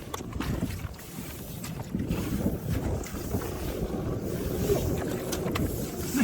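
Steady low rumble of a combine harvester's engine running, with wind buffeting the microphone.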